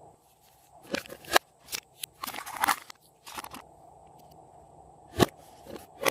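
Glossy slime being pressed and worked by hand, giving a series of sticky pops, clicks and squishy crackles in short separate bursts, with a sharp pop about five seconds in.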